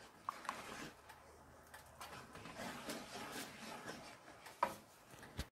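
Wooden spoon stirring and scraping thick cream sauce in a nonstick frying pan, a faint run of soft strokes. A couple of light clicks come early and a sharper knock near the end.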